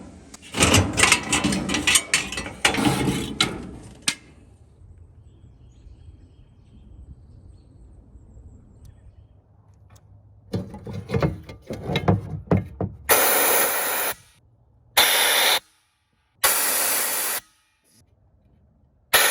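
Metal clattering and knocking as gas furnace burners and hand tools are handled during a burner cleanout, with a low steady hum between. Near the end come three short bursts of steady noise, each starting and stopping abruptly.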